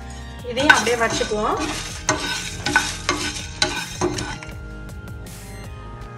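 A spatula stirring and scraping dried red chillies and coriander seeds around a nonstick tawa as they dry-roast, in a run of strokes from about half a second in until about four and a half seconds in.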